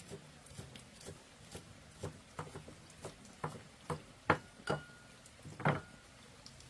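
A run of short, irregular knocks and taps, about two or three a second, louder in the second half.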